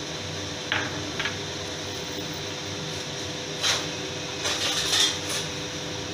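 Thick bean curry simmering in a steel pan on a gas burner, with a few short pops from bursting bubbles, several close together about four to five seconds in, over a steady hum.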